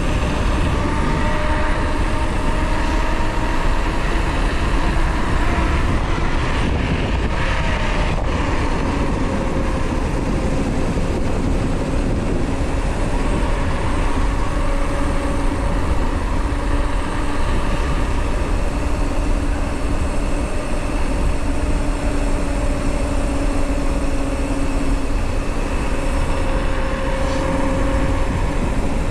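Knobby mountain bike tyres rolling fast on asphalt: a steady droning hum that drifts slightly in pitch with speed, over low wind rumble on the camera's foam-covered microphone.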